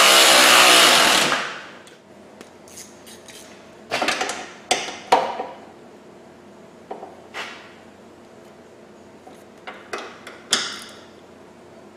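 A power tool runs steadily on the rock slider's mounting bolts and cuts off about a second in. After that come scattered sharp metallic clicks and clanks as the bolts are snugged up by hand with a ratchet and extension.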